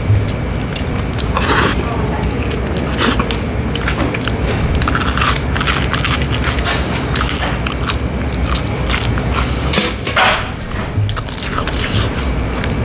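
Close-miked biting and chewing of crunchy deep-fried food, with many quick crackling crunches throughout.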